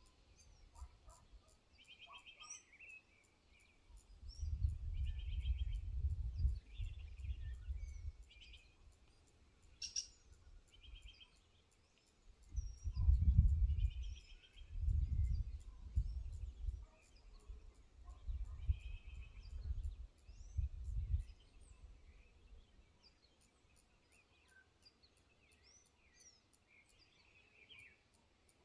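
Wild birds calling in short repeated trilled phrases and high chirps over an insect's steady, evenly spaced high ticking. Several gusts of wind buffet the microphone with low rumbles, the loudest about 13 seconds in.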